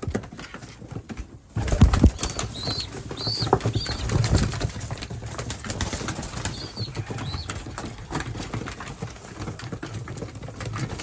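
Pigeons moving about in a loft: irregular wing flaps, knocks and scuffles, loudest about two seconds in, with a few short high chirps.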